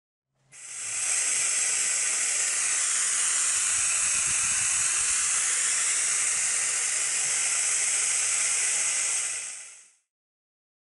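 Steady hiss of air from a Convum SGP-series sponge vacuum gripper while it applies suction and holds its load. The hiss starts about half a second in and dies away about ten seconds in as the suction is released.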